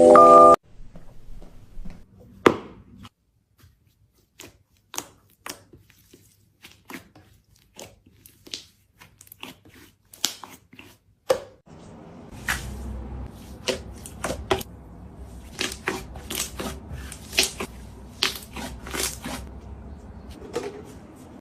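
Slime being squeezed and pressed by hand, giving irregular sticky clicks and pops.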